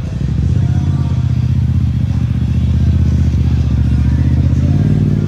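A vehicle engine idling steadily close by, an even low rumble that gets louder shortly after the start.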